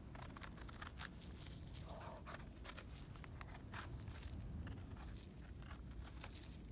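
Small knife scraping and trimming soil off the base of a freshly picked mushroom's stem, with gloved hands handling it: a run of faint, short, irregular scrapes and cuts.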